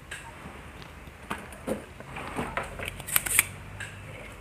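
Soldering tools picked up and handled on a workbench: a scatter of light knocks and clicks, the sharpest cluster about three seconds in, as a desoldering pump is taken up.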